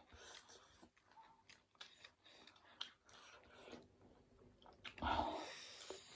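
Faint mouth sounds of someone chewing noodles, with small wet clicks. About five seconds in comes one louder, longer noise.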